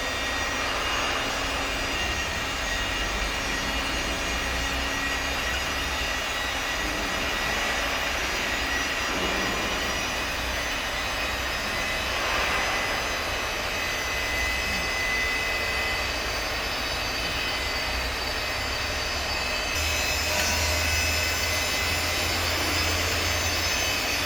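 Steady running noise of CNC woodworking machinery, a hiss and hum with a thin steady whine. A deeper hum grows louder about twenty seconds in.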